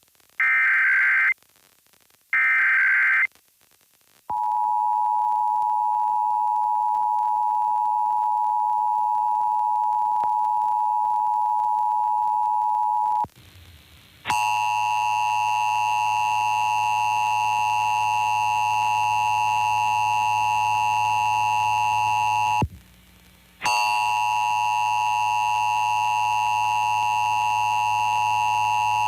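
Emergency Alert System tones on an FM radio broadcast, opening a Required Monthly Test. The last two of the three digital header bursts sound, about a second each. Then the two-tone attention signal holds steady for about nine seconds, and after a one-second pause a rougher version of the tone with many overtones sounds, broken once by a second-long gap about two-thirds of the way through.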